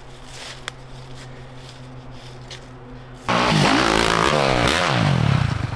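A steady low hum, then about three seconds in a dirt bike engine comes in loud, revving up and down several times in quick succession before dropping away near the end.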